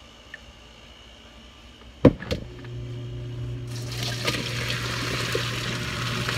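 A single loud knock about two seconds in, then, from about four seconds in, a steady rushing of hot water poured from a pot into a sink: the grapes being drained after their second boil. A low steady hum runs underneath after the knock.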